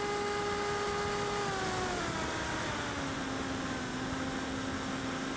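Finwing Penguin RC plane's brushless electric motor and propeller whining steadily, over heavy wind rush, as heard from the onboard camera. About two seconds in, the pitch glides down and then holds lower as the motor slows.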